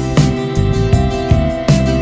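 Background music: soft instrumental with plucked guitar-like notes.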